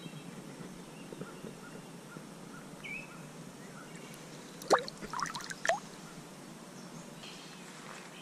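A brief cluster of water splashes a little past halfway as a released brown trout kicks free of the hand into the shallows. Faint bird chirps come earlier.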